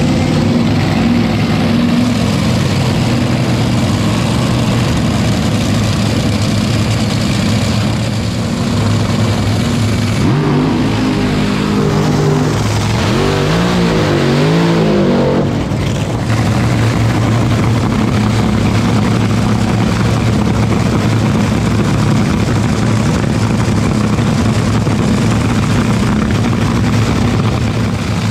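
Top Fuel dragster's supercharged nitromethane Hemi V8 idling. About ten seconds in it revs hard for the burnout, its pitch swinging up and down for several seconds while the rear tyres spin and smoke, then it settles back to a steady idle.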